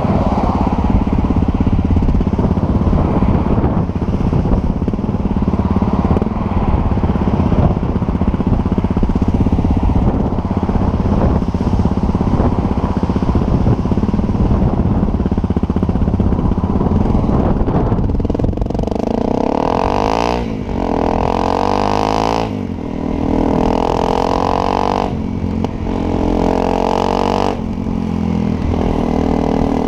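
Honda CRF250L's 250 cc single-cylinder four-stroke engine idling steadily through its exhaust, then revved in several short throttle blips over the last ten seconds, each rising and falling in pitch.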